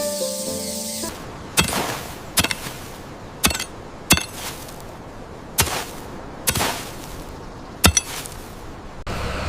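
About seven sharp, irregularly spaced knocks on something hard, each with a short ring, after a second of music. A steady low hum starts near the end.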